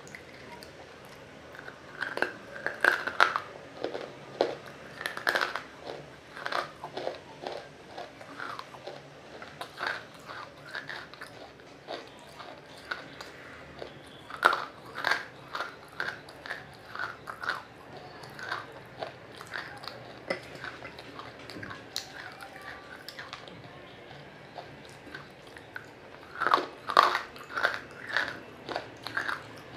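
Close-miked biting and chewing of water-soaked pieces of roasted nakumatt, giving wet crunches in clusters of sharp crackles. The loudest runs come a few seconds in and again near the end.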